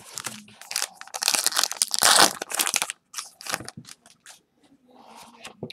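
Baseball card pack wrapper being torn open and crinkled by hand: dense crackling for about three seconds, loudest around two seconds in, then a few scattered crackles.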